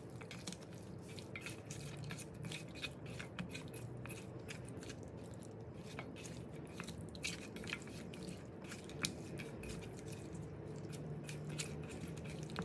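Raw chicken wings being mixed by hand in their marinade in a stainless steel bowl: faint, irregular wet squishing with many small clicks of meat against the metal.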